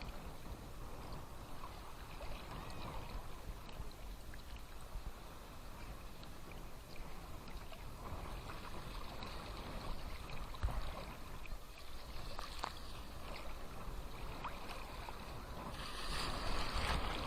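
Small sea waves lapping and splashing at the shore, the wash swelling and fading every few seconds, with the loudest wash near the end.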